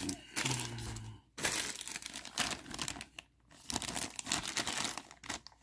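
Plastic bags crinkling and tearing as they are handled and opened, a dense, irregular rustle.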